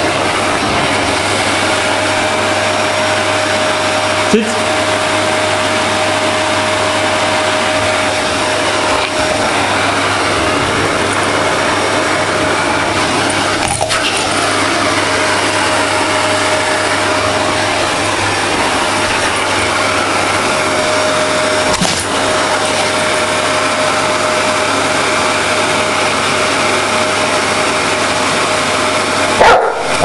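Vacuum cleaner running steadily over a rug, with a steady high motor whine. A large Dogue de Bordeaux barks at it near the end.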